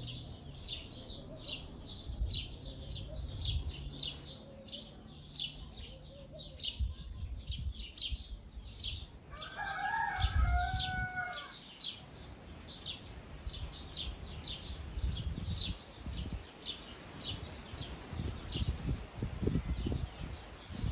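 A small bird chirping over and over, about two short high chirps a second, while a rooster crows once for about two seconds near the middle. Low, soft thumps come and go underneath.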